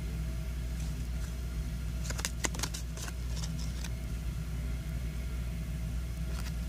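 Trading cards being handled and flipped: a quick cluster of crisp rustles and clicks about two to four seconds in, and one more near the end, over a steady low hum.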